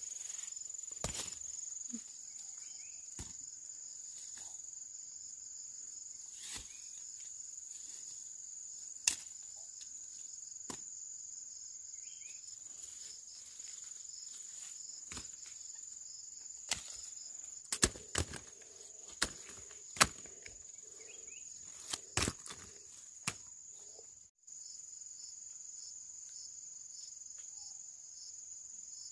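A steady, high-pitched chorus of insects, with scattered sharp clicks and snaps, bunched together a little past halfway.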